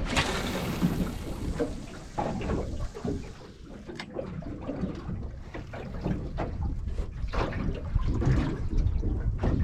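Water slapping and lapping against the hull of a small drifting boat, with wind buffeting the microphone and a short hissing rush at the start.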